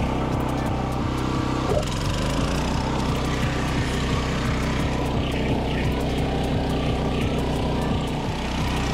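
Crawler hammer knife mower running steadily while cutting grass: its small petrol engine holds an even note under load, and the note shifts slightly about two seconds in.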